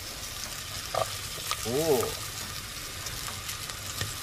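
Chopped turmeric, garlic and onions sizzling steadily in hot margarine in an aluminium pot, with a couple of knocks about a second in as the onions go in. A brief voice-like sound, rising then falling in pitch, about two seconds in.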